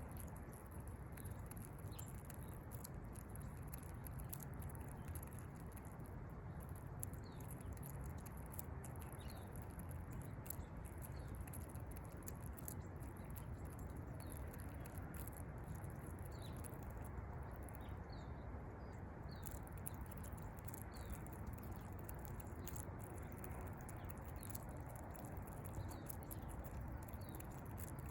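Squirrel cracking and nibbling seeds: frequent small clicks over a steady low background rumble, with short high bird chirps every second or two.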